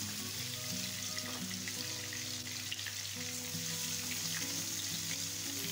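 Masala-coated fish pieces sizzling steadily as they shallow-fry in hot oil in a non-stick pan.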